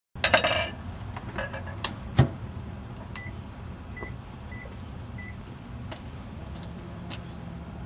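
Microwave oven being set going: clatter and clicks, a sharp knock about two seconds in as the door shuts, four short keypad beeps, then the oven's low steady hum as it starts running.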